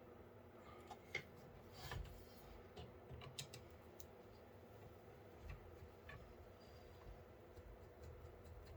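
Faint, scattered clicks and light taps of small metal and plastic PC parts being handled, a few seconds apart, the sharpest about a second and two seconds in.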